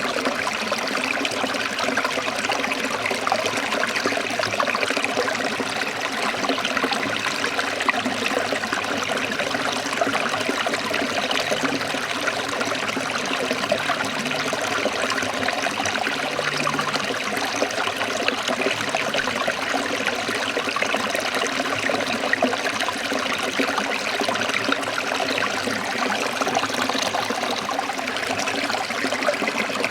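Small stream or waterfall splashing and trickling over rocks in a steady, unbroken rush.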